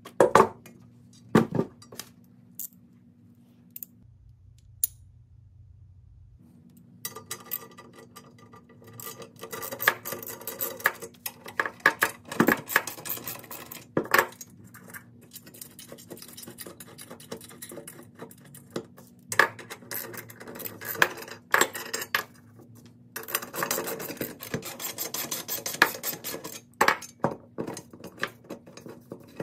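Metal parts, bolts and hand tools clinking, knocking and scraping as a steel drill-stand base is handled and fastened: a few sharp knocks, then long runs of rapid clicking and clatter.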